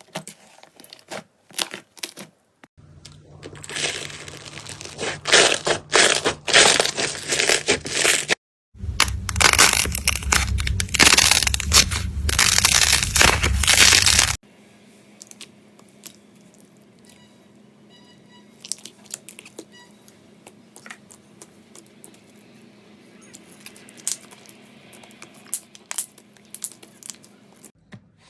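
Slime being squeezed and pressed by hand, giving dense crackling and popping that is loudest in two stretches in the first half, then quieter, scattered clicks and pops.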